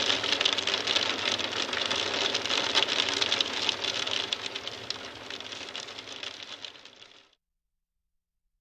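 A heavy shower pattering densely on a surface, a close crackle of many small hits. It fades over the last few seconds and cuts off suddenly about seven seconds in.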